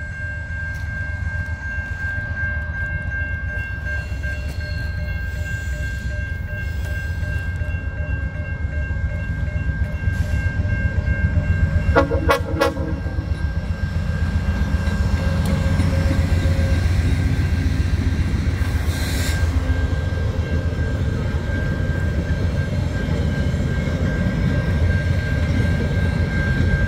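VIA Rail P42DC diesel locomotive running past at a level crossing with its passenger cars rumbling along behind, a short horn blast about twelve seconds in. The crossing warning bell rings steadily throughout.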